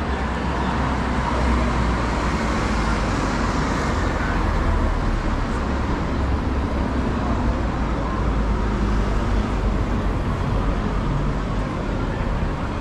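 City street traffic: cars driving along the road beside the sidewalk, a steady roadway rumble, with one vehicle swelling louder a couple of seconds in.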